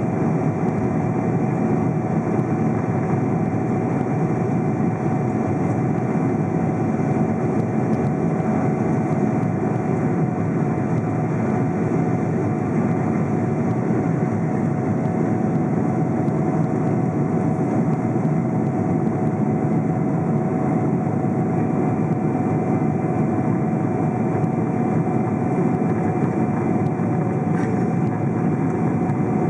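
Steady cabin noise of a KLM Boeing 777-200 in flight, heard from a window seat: the drone of its GE90 engines and the rush of air past the fuselage, with a steady whine that slips lower in pitch near the end.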